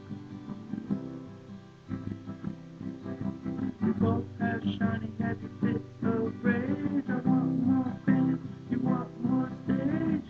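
Acoustic guitar being strummed, with a man's voice singing along from about four seconds in.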